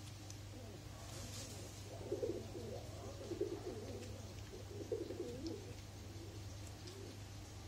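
A dove cooing, three short phrases of low coos in the first five seconds or so, over a steady low hum.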